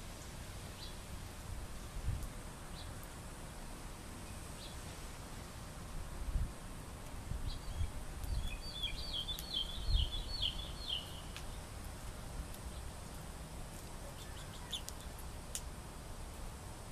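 A small songbird chirping: single short high chirps every couple of seconds, then a quick twittering phrase of rapid notes lasting about three seconds around the middle. Low thumps and rumbles sound underneath.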